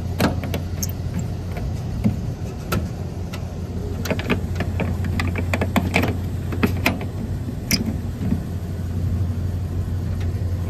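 York rooftop HVAC unit running with a steady low hum. Sharp clicks and knocks come from its metal access-panel latches being turned and the panels pushed shut.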